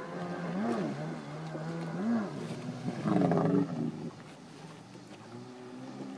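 Jet ski engine revving up and down in short blips of throttle, with the loudest burst of acceleration about three seconds in, then settling lower.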